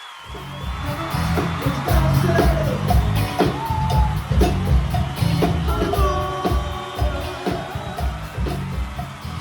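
A band's music comes in abruptly just after the start: a heavy beat of drums and bass with pitched instrument lines above, and a voice singing.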